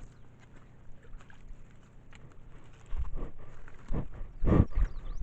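An animal, likely the small deer, breathing and sniffing right at the trail camera's microphone: a few short puffs of breath in the second half, after a quiet start.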